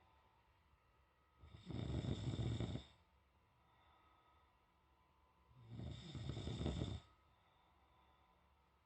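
A man snoring loudly in his sleep: two long snores about four seconds apart, each lasting over a second.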